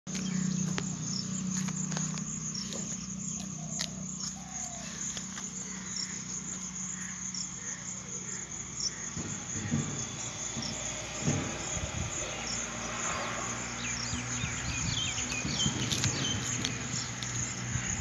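Insects trilling steadily and high-pitched, over a low hum, with scattered short chirps and clicks.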